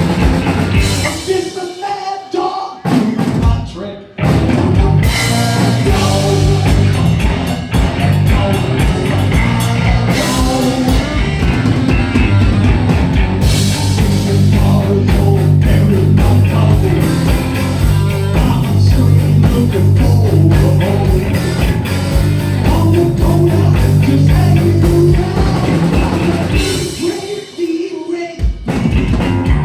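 Heavy metal band playing live: distorted electric guitars, bass and drum kit. The band drops out in short stop-time breaks punctuated by single hits about one to four seconds in, and again briefly near the end.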